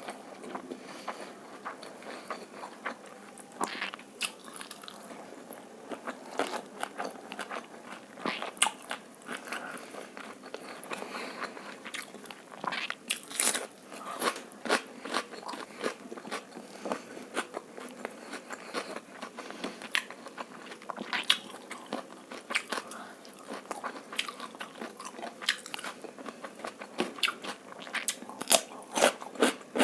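Close-miked eating sounds: chewing egg fried rice and chilli chicken, with irregular crunches and wet clicks of the mouth.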